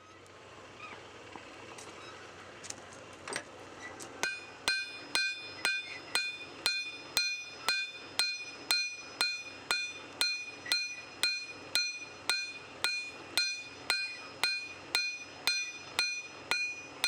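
Hammer blows on steel over an anvil, about two a second, each with a bright metallic ring, as a punch is flattened into a knife blade. The blows begin about four seconds in, after a few seconds of steady hiss and a few light taps.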